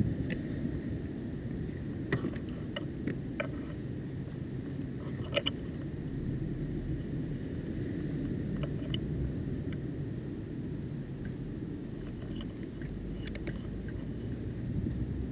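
Steady low outdoor rumble, with a few faint short ticks scattered through, a handful about two to three seconds in, around five seconds in, and near the end.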